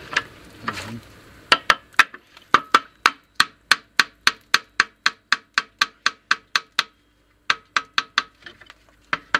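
A hand tool working on the truck's wheel hub: a quick, even run of sharp metallic taps or clicks, about four a second, stopping briefly about seven seconds in and then starting again.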